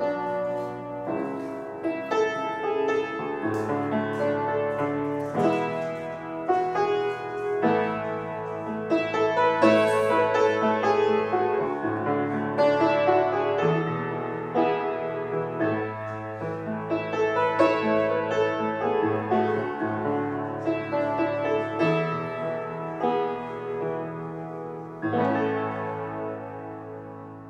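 Upright piano played solo: a piece in full, sustained chords over low bass notes. Near the end a last chord is struck and left to ring and fade away.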